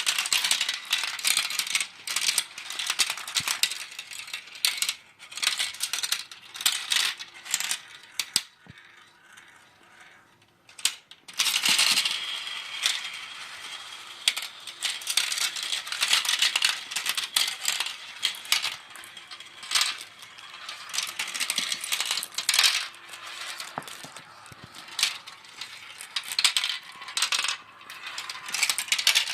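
Marbles clicking and clattering as they roll and drop through a marble run, a dense stream of sharp clicks. It thins to almost nothing for a couple of seconds before the middle, then picks up again.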